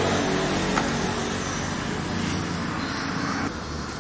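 A motor vehicle engine running close by, a steady hum over noise, which drops off about three and a half seconds in.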